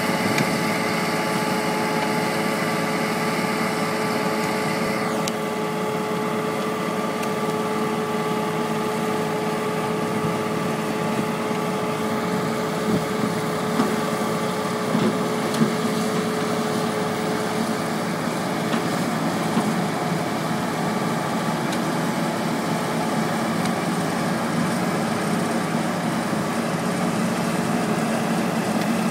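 Construction machinery engine running steadily with a constant hum, with a few light knocks in the middle.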